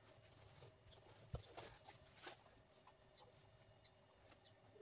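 Near silence: faint steady room hum with a few soft, short clicks and taps, the clearest about a second and a half in.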